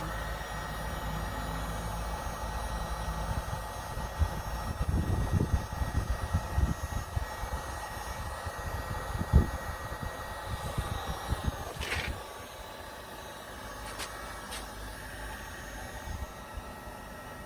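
Heat gun running steadily with a constant whine from its fan, over low rumbling and knocks from handling that drop away about twelve seconds in.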